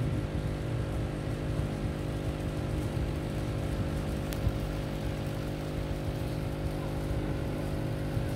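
Steady electric hum with a buzz from grow-tent equipment running, its small circulation fan among it.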